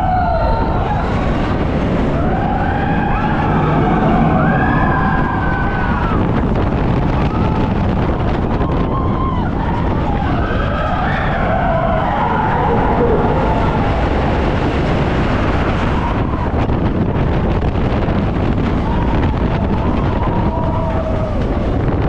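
Several voices calling out in long, wavering, rising-and-falling cries over a loud, steady rushing noise.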